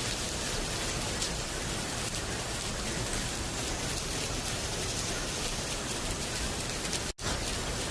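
Steady rainfall, an even hiss of drops, cutting out for an instant near the end.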